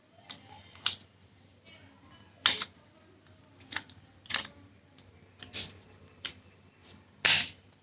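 Irregular sharp plastic clicks and snaps as the casing and keypad of a Sony TV remote are handled and pressed back together, about one every second, the loudest near the end.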